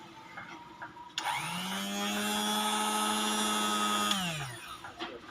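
Repaired electric blender's motor, powered directly from the mains, switched on about a second in. It spins up quickly to a steady hum with a whine, runs for about three seconds, then is switched off and winds down with falling pitch.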